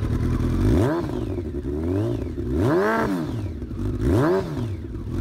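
Kawasaki ZX-12R's inline four-cylinder engine, stationary, revved in quick throttle blips about once a second. Each blip rises and falls in pitch through an aftermarket slip-on exhaust.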